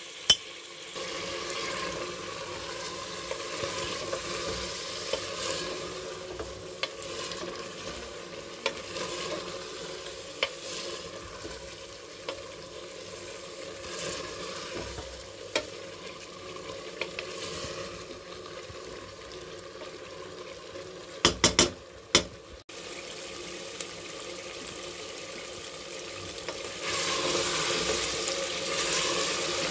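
Mutton, sliced onions and green chillies sizzling in an aluminium pressure cooker while a wooden spoon stirs them, with scattered knocks of the spoon against the pot. There is a quick run of louder knocks about 21 seconds in, and the sizzling grows louder near the end.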